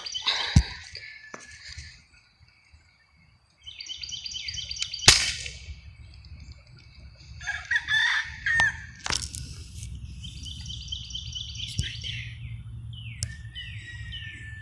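Birds calling and singing in repeated high trilled phrases, broken by a few sharp clicks, over a low rumble.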